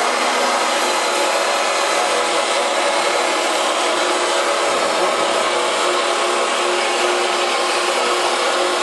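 Potato strips deep-frying in the hot oil of an industrial batch fryer: a steady, loud sizzling hiss with a faint steady hum underneath.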